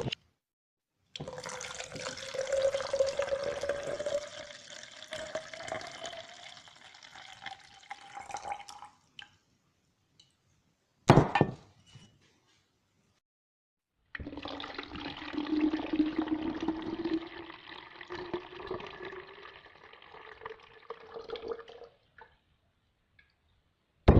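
Water poured into a container, heard twice, each pour lasting about eight seconds with a tone that rises steadily as it goes. Between the two pours, about eleven seconds in, comes a single short sharp knock.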